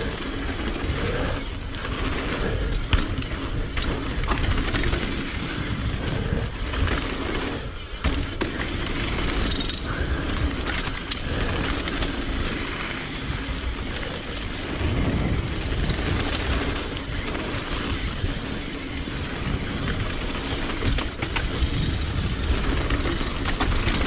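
Mountain bike riding down a dirt trail: a continuous rush of tyre and trail noise, heaviest in the lows, with many small knocks and clicks as the bike rattles over bumps.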